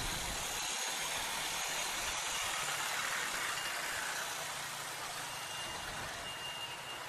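Motorcycle ride noise from a CPI DTR 150: a steady rushing hiss of wind and road, with the engine only faintly heard beneath it, slowly getting a little quieter toward the end.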